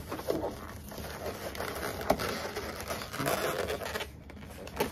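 Latex modelling balloons being handled and worked: a twisted 260 balloon fed around a round-balloon eye, the latex rubbing against latex and hands in irregular bursts, with a few short sharp sounds.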